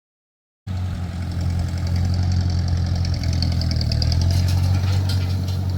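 Tractor engine running steadily, starting abruptly about half a second in, with a high whine above the engine note.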